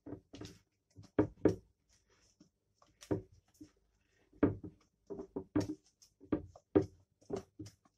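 Silicone spatula stirring thick cocoa cake batter in a glass bowl: a quick, irregular series of short knocks and scrapes against the glass, each with a brief ring from the bowl.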